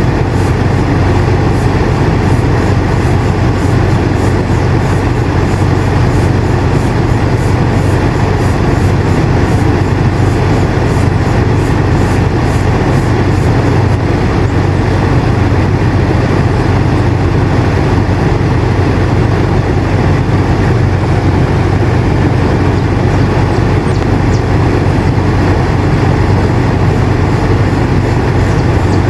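Air conditioner running steadily: a constant low hum under an even rush of air, with no change in pitch or level.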